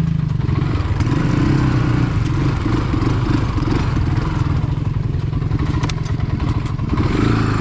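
A four-wheeler's engine runs and revs unevenly as it is ridden through deep mud, with a few brief knocks from the machine near the end.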